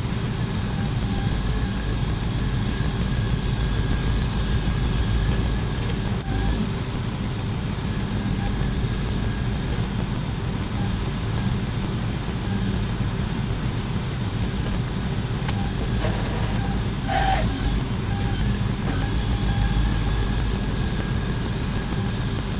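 Heavy truck or machinery engine running steadily, with a deep rumble and a few steady whining tones over it; a brief higher-pitched sound about 17 seconds in.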